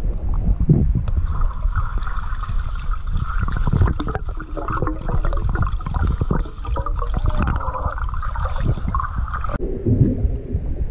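Muffled water rushing and rumbling against a GoPro held underwater as it moves along just above a lake bottom. A steady higher-pitched hum runs over most of it and cuts off suddenly about a second before the end.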